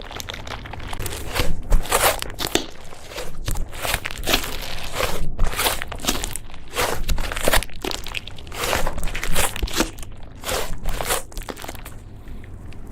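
Slime being squeezed and kneaded by hand, giving a run of crackling, popping squishes about one to two a second that stop near the end.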